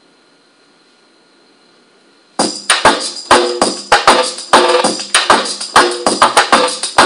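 Faint steady hiss with a thin whine, then about two and a half seconds in a DJ mix starts suddenly and loud: dance music with sharp, rhythmic percussion hits and no deep bass, played through computer speakers.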